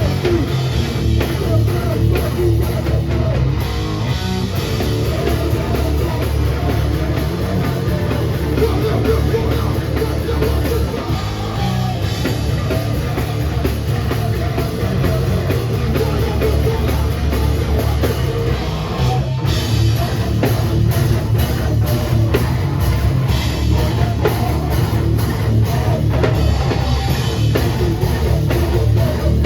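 Hardcore band playing live: distorted electric guitars, bass and a fast-hit drum kit, loud and dense.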